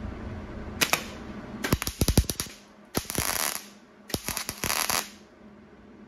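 MIG welder tack-welding the steel hood of a 1961 Chevrolet Impala: a single snap about a second in, a quick run of crackling pops around two seconds, then two longer crackling tacks, the last about a second long.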